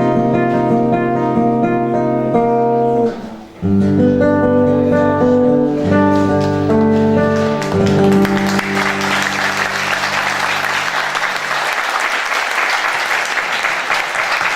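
Guitar playing the closing chords of a song, with a short break about three seconds in. About halfway through, audience applause starts and swells while the last chord rings out and fades.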